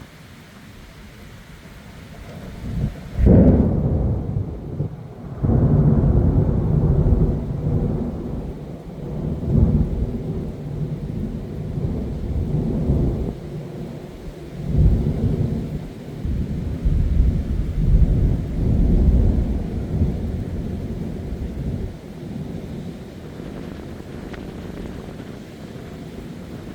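Thunder: a sharp clap about three seconds in, then a long rolling rumble that swells and ebbs in several surges before dying down, with heavy rain falling throughout.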